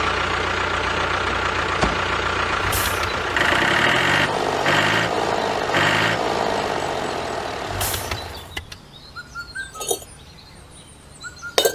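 A small motor running steadily, surging in three louder pulses in the middle, then winding down and stopping about eight seconds in. Faint bird chirps follow near the end.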